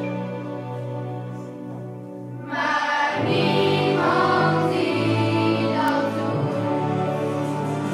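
A children's choir singing a song with instrumental accompaniment, the sound growing fuller and louder about two and a half seconds in.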